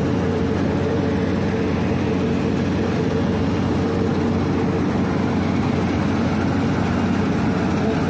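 W 210 cold milling machine running: a steady heavy diesel drone with a held mid-pitched whine, unchanging throughout.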